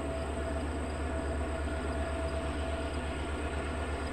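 Distant diesel locomotive running as a train approaches along the line, a steady low rumble.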